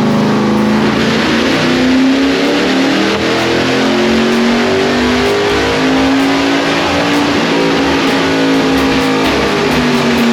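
Chevrolet small-block V8 of a 1960s Lola T70 race car running hard on a chassis dynamometer, its engine note rising and falling as the revs change.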